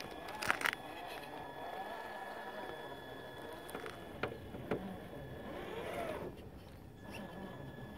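Traxxas TRX-4 RC crawler's stock 21-turn Titan brushed motor and drivetrain whining, the pitch rising and falling with the throttle as it crawls. Several sharp clicks and knocks come from the tyres and body bumping and scraping over rock and roots.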